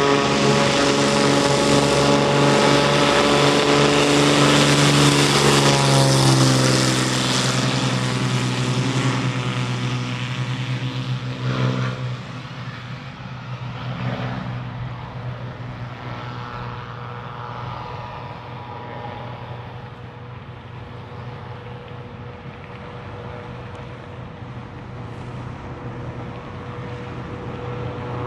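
Pusher-propeller light aircraft's engine and propeller at power, loud and close at first, dropping in pitch as it goes past, then fading to a steadier, distant drone as it climbs away.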